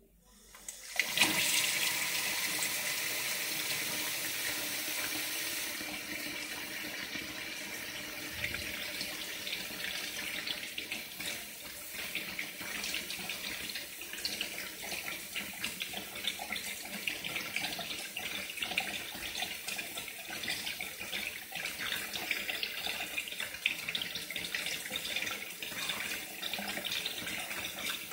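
A stream of cold water pouring into a pot of hot water to cool hard-boiled eggs. It is a steady splashing hiss that starts about a second in and turns choppier after several seconds.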